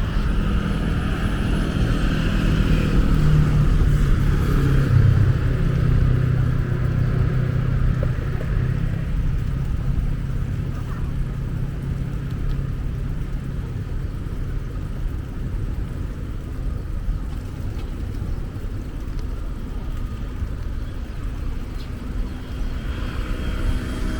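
Wind rumble and rolling noise on a moving bicycle-mounted microphone, with a low hum that swells a few seconds in and fades out about halfway through.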